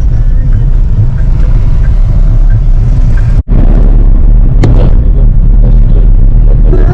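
Car on the move: a loud, steady low rumble, broken by a brief drop-out about halfway through.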